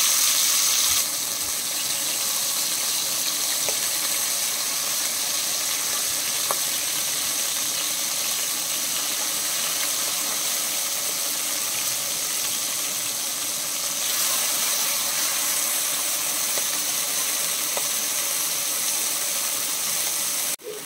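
Oysters coated in a chilli, turmeric and cornflour masala shallow-frying in hot oil in a steel pot: a steady sizzle, with a few faint clicks of a steel spoon against the pot.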